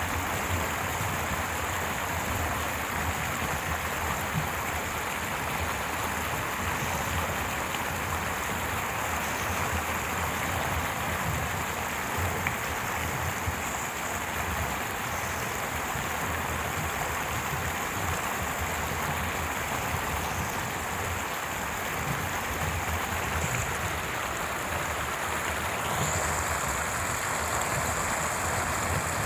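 Stream water running steadily over stones, an even rushing babble with no pauses. A faint high steady tone joins near the end.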